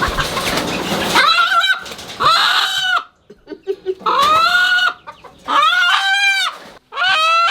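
Country roosters calling loudly: about five squawking calls, each under a second, after about a second of rustling at the start.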